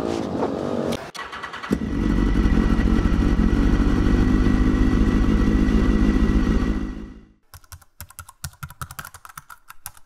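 A motorcycle engine held at steady high revs for about five seconds, then fading out. It is followed by a quick run of keyboard typing clicks as a title is typed out.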